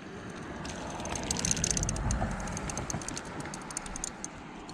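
Spinning reel being cranked quickly to reel in a hooked trout: a fast run of fine clicks with a low rumble of handling underneath.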